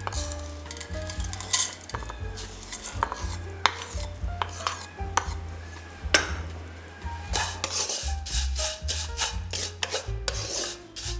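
A spatula stirring and scraping vermicelli in a pan, many short scrapes in quick succession, over background music with a steady bass line.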